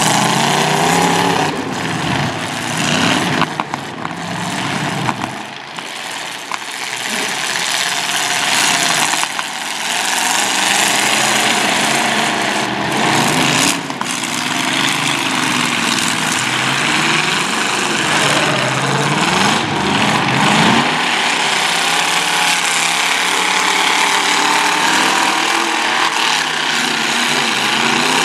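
Engines of several demolition derby cars running and revving at once, each rising and falling in pitch, with a few sharp knocks, two of them about a second apart near the middle.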